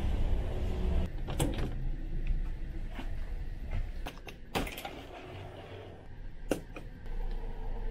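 Ferry cabin door being unlocked and opened: a few clicks, a louder clunk of the door about halfway through, then a sharp wall light switch click near the end, over the ship's steady low hum.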